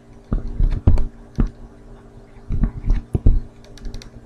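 Stylus tapping and drawing on a pen tablet: clusters of light clicks and knocks, with dull thuds beneath some of them, over a steady low hum.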